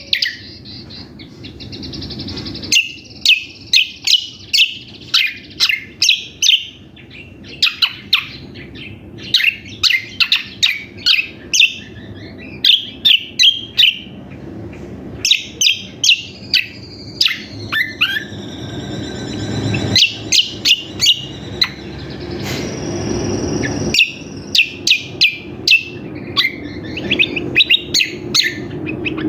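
Kecial kombok (cucak kombo) singing a busy, loud song of rapid sharp chirps in quick runs, with a buzzy trill partway through and one held high whistle a little later, the kind of noisy full song used as lure audio to call in males. A low rumble sits beneath it and grows louder toward the end.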